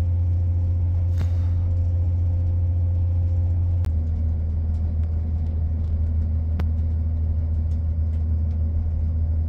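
Steady low rumble and hum inside a Northern Class 170 Turbostar diesel multiple unit on the move. About four seconds in, a steady higher tone stops and the low hum shifts lower. A few sharp clicks come through along the way.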